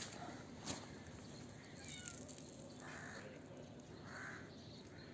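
Faint, short calls from the cats and birds being fed: small chirps about two seconds in, then two short calls at about three and four seconds, with a single sharp click just under a second in.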